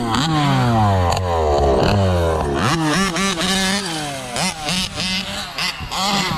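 Big-bore two-stroke gas engines of 1/5-scale RC trucks running hard. Over the first two and a half seconds the pitch slides steadily down, then the engines rev up and down in several quick blips.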